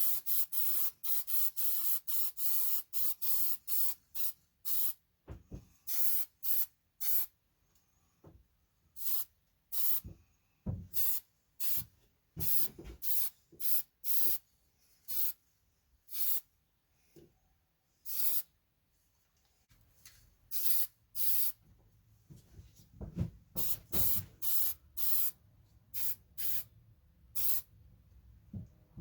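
Aerosol spray paint can hissing in dozens of short bursts, quick succession at first and more spaced out later, as paint is sprayed onto a freshly welded metal part.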